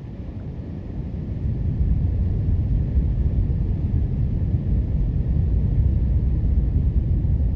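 Wind buffeting the microphone: a loud, fluctuating low rumble that builds over the first couple of seconds and then holds.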